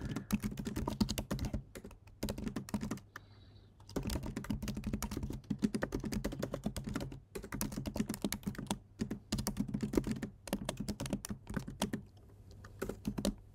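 Typing on a computer keyboard: quick, irregular runs of keystrokes, with a pause about three seconds in and another near the end.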